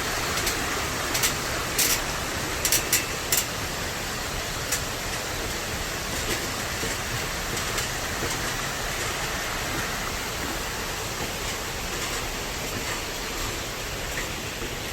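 Valley stream running steadily, with a few sharp clicks in the first few seconds.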